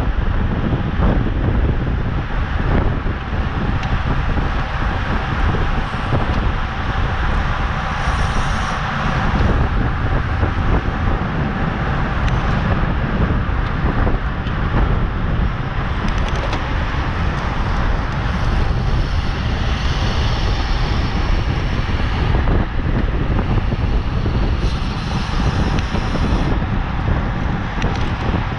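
Loud, steady wind buffeting the microphone of a camera carried on a racing road bicycle at speed, a rushing roar heaviest in the low end.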